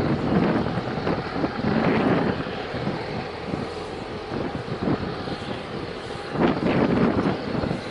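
Wind buffeting the microphone over a steady low rumble, with a stronger gust about six and a half seconds in.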